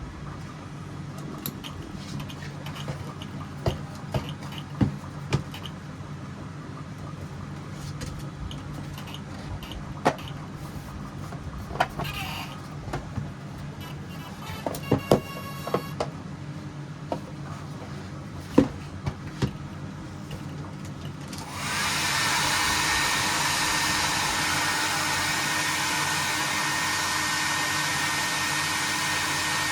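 A low steady hum with scattered sharp clicks and knocks. About two-thirds of the way through, a loud, steady, blower-like electric motor switches on and keeps running.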